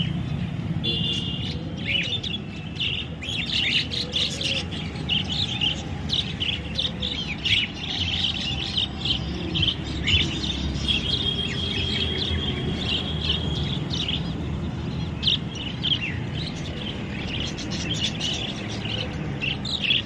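Caged zebra finches chirping: many short, high calls overlapping, with a steady high tone held for a few seconds midway, over a low background rumble.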